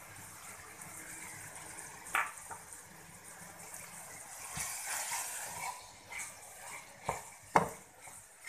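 Chicken masala and moringa pods sizzling in a wok, with a clack about two seconds in. Near the end, a spatula stirs and knocks against the pan a few times.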